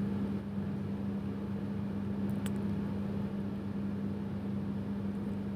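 A steady low hum over a faint hiss, like an appliance or fan running, with one faint click about two and a half seconds in.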